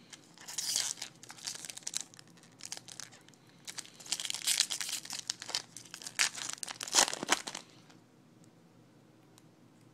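Foil wrapper of a 2012 Bowman baseball card pack crinkling and tearing as it is opened by hand, in a run of rustles and rips. The sharpest rip comes about two-thirds of the way through, and the sound stops about two seconds before the end.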